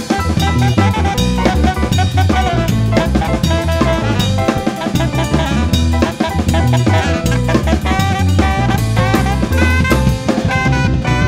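Live reggae-dub band playing: saxophone melody over drum kit, electric bass and electric keyboard, with a steady beat.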